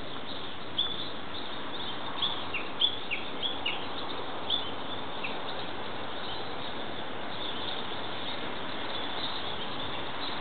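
Japanese bush warbler giving a run of short, sharp call notes, each dropping quickly in pitch, irregularly spaced through the first half, then stopping; a steady hiss of background noise runs underneath.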